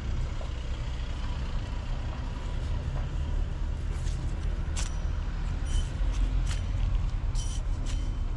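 A removed serpentine belt tensioner being handled and its pulley spun by hand, checked for bearing noise; it turns without an obvious fault. Sharp metallic clicks and clinks come from about halfway through, over a steady low rumble.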